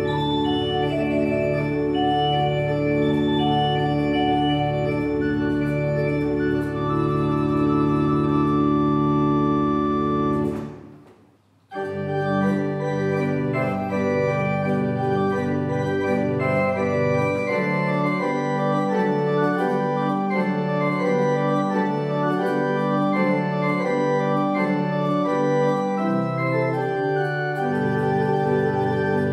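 Church pipe organ playing: sustained full chords over a deep bass, breaking off about ten seconds in for a second's pause, then a passage of shorter, moving notes, mostly without the deep bass.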